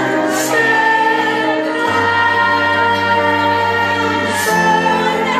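A male singer sings a slow ballad live into a microphone over backing music, holding long notes. The chord underneath changes about two seconds in and again near the end.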